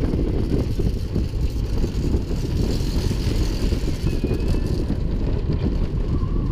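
Slinky Dog Dash steel roller coaster train running along its track, heard from the front seat: a steady low rumble of the wheels mixed with rushing wind.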